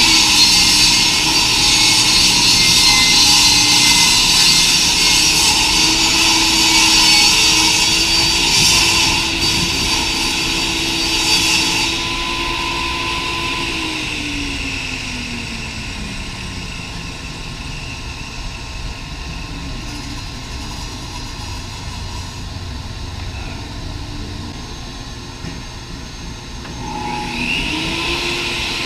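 Table saw ripping a sheet of marine plywood, a steady motor hum under the loud hiss of the blade cutting for about the first twelve seconds. Then the saw is switched off and its motor winds down in a falling whine. Near the end it is switched on again and spins back up.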